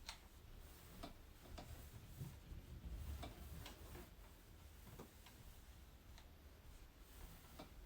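Faint, irregular light clicks against near silence: a Remington ceramic hair straightener being handled, its plates clamping and releasing through hair.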